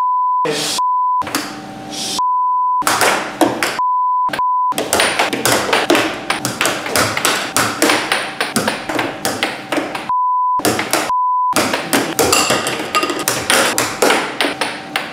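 Air hockey mallet and puck clacking in rapid knocks against the table and its rails. The sound is broken seven times by a short, single-pitch censor bleep dubbed over the audio.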